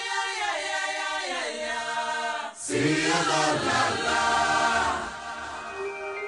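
Choral music: voices singing held chords that shift in steps, swelling louder and fuller about two and a half seconds in and easing off near the end.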